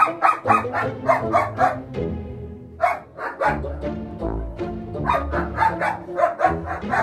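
German Shepherd barking in quick runs of short, sharp barks, about three or four a second, with a brief break around two seconds in, a jealous dog demanding attention. Background music plays underneath.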